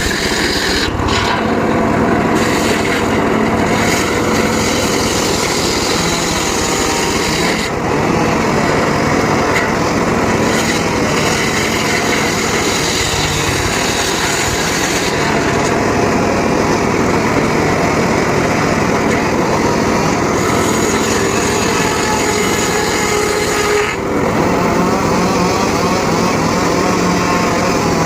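Homemade circular saw rig cutting teak wood: a loud, steady running drone with the cutting noise shifting several times, briefly dipping about eight seconds in and again near the end.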